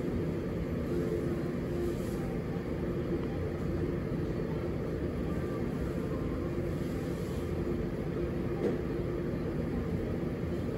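Steady low rumbling drone with a faint continuous hum, unchanging throughout.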